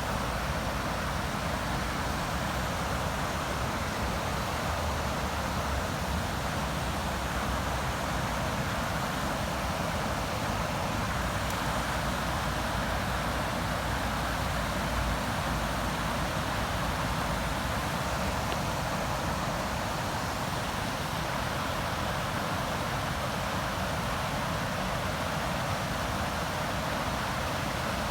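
River water flowing, a steady rushing noise with a low rumble underneath.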